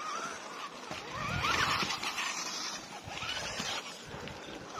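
Axial SCX10 II RC rock crawler driving off, its electric motor and gears whining in pitch that rises and falls with the throttle, twice swelling louder, with the wheels rustling over wet leaves and paving.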